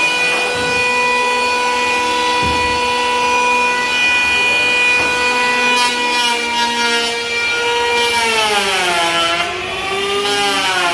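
Electric woodworking power tool running with a steady high whine, then slowing and wavering in pitch about eight seconds in as it cuts into the wood.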